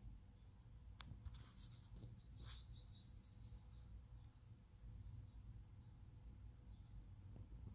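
Faint bird chirps and quick twittering trills played through a TV's speaker, over a low steady hum, with a single sharp click about a second in.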